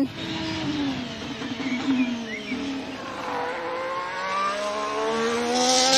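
Formula One race car engine sound: the engine note drops for the first three seconds or so, then climbs again as it accelerates toward the end.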